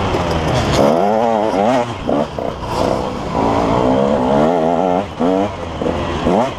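KTM 150 XC two-stroke dirt bike engine, heard close from the rider's helmet, revving up and falling away again and again as the throttle is worked, with brief drops where the throttle is chopped.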